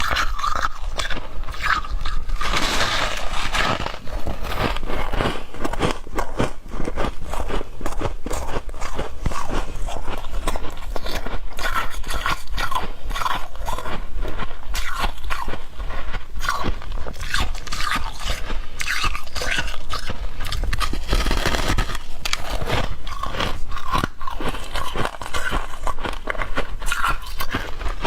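Freezer frost being bitten and chewed close to the microphone: dense, continuous crunching.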